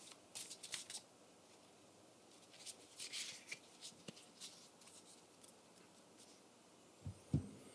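Tarot cards handled on a table: faint rustles and clicks in a few short clusters, then a couple of soft thumps near the end.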